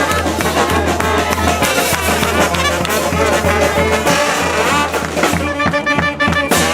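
Street brass band playing, horns over a steady percussive beat.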